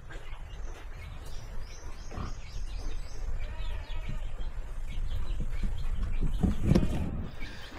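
Pigs in a farrowing pen: a pig grunts near the end, the loudest sound here. A bird chirps a quick run of high notes in the background a couple of seconds in.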